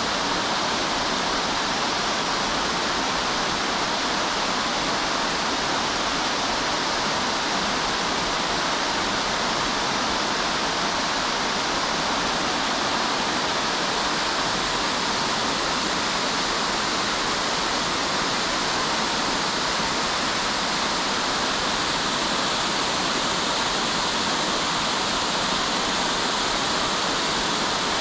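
Spring waterfall: water falling and rushing in a steady, even murmur.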